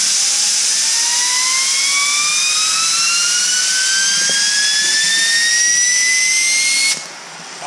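Small ball bearing spun up by a blast of compressed air: loud air hiss with a whine that climbs steadily in pitch as the bearing speeds up, both cutting off suddenly about seven seconds in.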